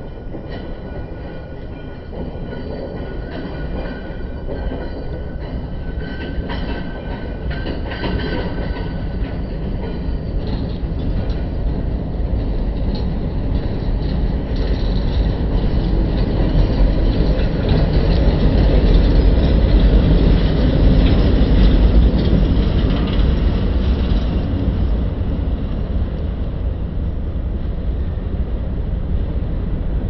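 Slowed-down sound of the Knoebels Twister wooden roller coaster's lift hill: a deep rumble and dense clatter as a train is hauled up the chain lift. A few steady whining tones sound in the first third. The clatter swells to its loudest as the train passes just past the middle, then eases off.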